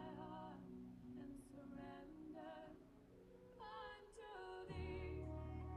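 Soft background music: a high melody of short, wavering notes over held low tones, with a deeper low drone coming in near the end.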